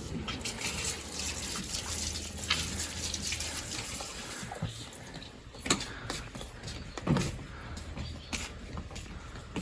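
Water running and splashing, with scattered clicks and two sharper knocks a little past halfway.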